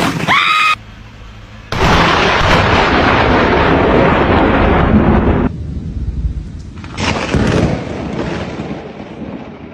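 A sudden, loud thunderclap from a close lightning strike about two seconds in, rolling on for several seconds, with a second surge of rumble around seven seconds in before fading.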